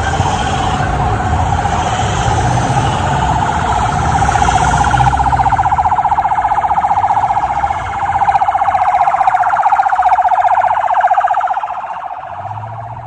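Police siren of a motorcade sounding continuously with a fast warble, fading away near the end, over the low rumble of passing vehicles in the first half.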